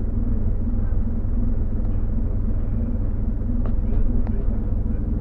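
Scania OmniLink bus's diesel engine idling with a steady low rumble, heard from inside the passenger saloon. A few faint clicks come near the middle.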